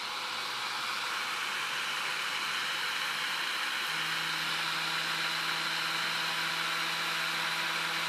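Disc spinning on a DVD writer's brushless spindle motor under a sensorless controller: a steady whir and airy hiss that grows slightly louder over the first second or two as the drive level is raised, then holds. A low hum joins about four seconds in.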